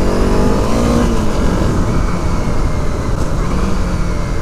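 Honda CRF dual-sport motorcycle engine running while being ridden, the revs easing off in the first second and then holding steady.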